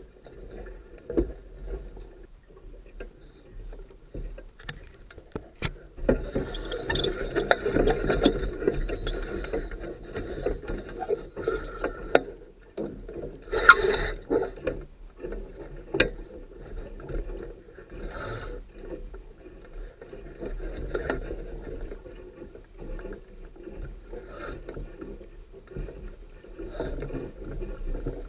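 Water rushing and slapping along a Sunfish sailboat's hull as it sails, with scattered knocks from the boat and its rigging; the sharpest knock comes about halfway through.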